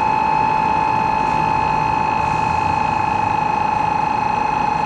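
Shinkansen platform departure bell: a loud, steady electronic ringing tone with a fast flutter, signalling that the train's doors are about to close.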